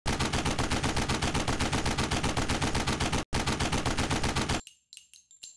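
Automatic gunfire in a long, rapid burst, about seven shots a second, with a brief break a little past three seconds. It stops abruptly, leaving a few light metallic clinks.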